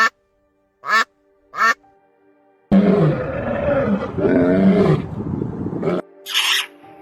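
A duck quacking three times, then a louder, longer animal call lasting about three seconds, with a short raspy burst near the end and faint background music throughout.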